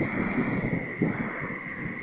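Strong wind buffeting the microphone in uneven gusts, with a steady hiss underneath.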